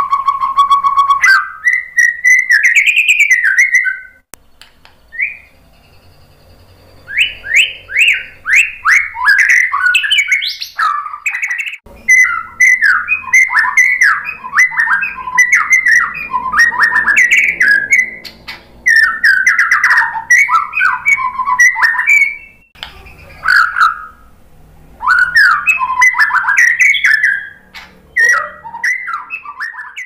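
White-rumped shama singing in its cage. A held steady whistled note opens, then come runs of fast, varied warbling phrases with short pauses between them.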